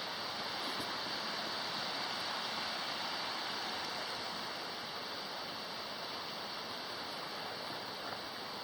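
Steady rush of flowing water from a stream, an even hiss with no breaks.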